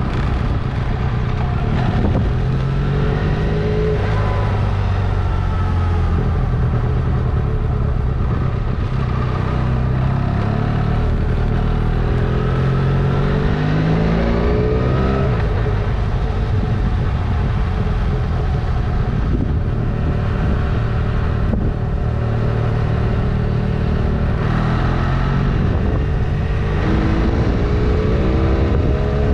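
Honda CMX 500 Rebel's parallel-twin engine running on the road, its pitch rising and falling several times with throttle and gear changes, climbing about halfway through and again near the end.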